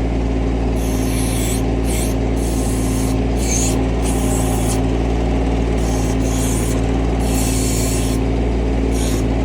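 Mahindra Max 26XLT compact tractor's diesel engine running steadily while the B26 backhoe works, with repeated bursts of hissing scrape from about a second in until near the end.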